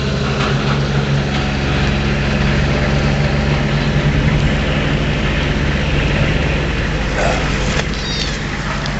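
A vehicle engine idling with a steady low drone, and a small kitten mewing briefly near the end.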